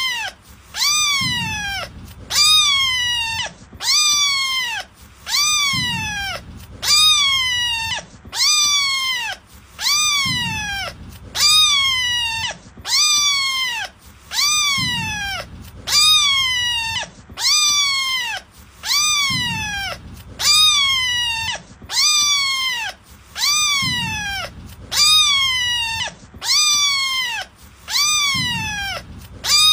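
A cat-like meow repeated identically about once a second as a looped sound effect, each call falling in pitch. A soft low thud recurs every four to five seconds.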